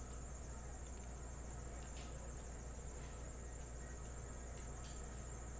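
2021 Topps Stadium Club baseball cards being flipped through by hand: a few soft clicks and slides as cards are moved through the stack, about four in all. Under them runs a faint, steady high-pitched whine with a low hum.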